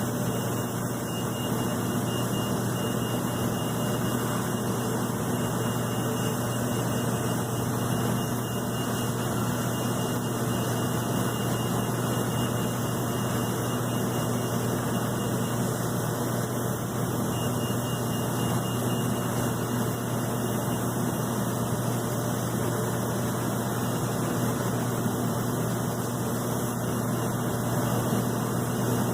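Steady jet noise from an Airbus A330-223 on the ground: an even drone with a low hum underneath and a thin high whine that drops out for a few seconds past the middle.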